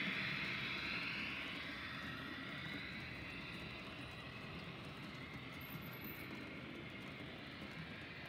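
Model freight train running on the layout track: a steady whirring hiss of wagon wheels on the model rails and the motor of the SBB Crocodile model locomotive, fading over the first few seconds as the locomotive moves away.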